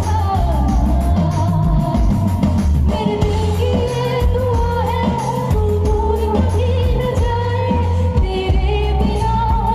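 A woman singing live into a microphone, holding long wavering notes over amplified music with a heavy, pulsing bass line, played loud through a stage sound system.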